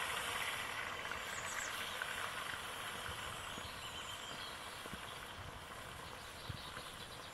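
A large fish head sizzling in hot oil in a kadai, having just gone in: a loud, dense sizzle with small crackles that starts suddenly and slowly dies down.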